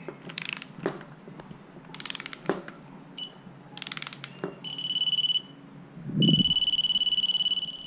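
Digital click-type torque wrench ratcheting in a few short strokes on a motorcycle rim lock nut, then its buzzer giving a steady high beep. The beep sounds briefly about halfway through, then again from near the end and keeps on: the set torque of 10 foot-pounds has been reached.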